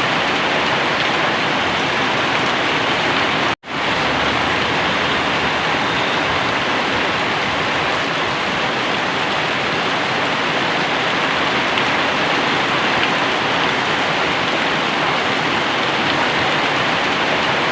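Very heavy rain pouring down steadily. It cuts out to silence for a split second about three and a half seconds in, then resumes.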